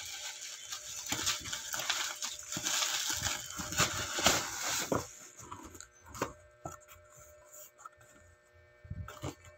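Bubble wrap and plastic packaging rustling and crinkling as it is pulled off a parcel, with many small clicks. After about five seconds it gives way to a few scattered knocks of a cardboard box being handled.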